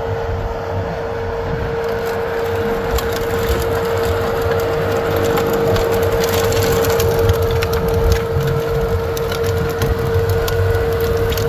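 Bobcat S185 skid steer's diesel engine running with its snowblower attachment spinning, a steady whine over the engine rumble. From a few seconds in, a dense crackling joins it as the auger chews through snow and throws it.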